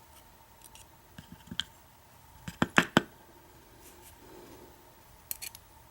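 Small pins from a disassembled padlock being handled: a few light, scattered clicks and taps, the loudest cluster about halfway through.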